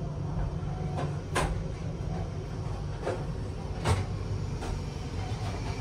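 Inside a Fuxing CR400AF-A high-speed train carriage: a steady low rumble, broken by several sharp knocks and clicks, the loudest about four seconds in.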